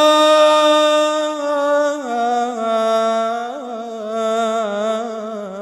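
A male solo voice sings an Arabic religious inshad, drawing out one long melismatic note with wavering ornaments. The pitch drops a step about two seconds in, then turns in small ornamental waves.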